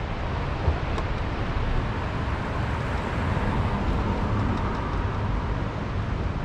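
Wind buffeting the microphone: a steady, gusting low rumble with a faint hiss above it.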